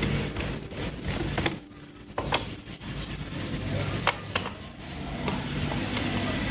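Scattered small clicks and taps of a screwdriver working screws and plastic panels on a laptop's underside, with a few sharper clicks about two and four seconds in.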